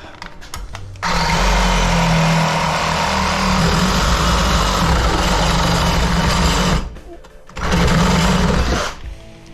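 Power saw cutting through copper pipe, running steadily for about six seconds, stopping briefly, then cutting again for about a second and a half before stopping.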